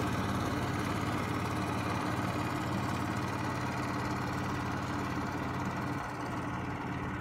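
Small long-tail boat engine running steadily under way: a steady low drone with a fast firing beat.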